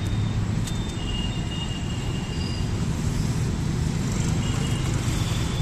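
Steady low rumble of road traffic, with faint thin high tones coming and going.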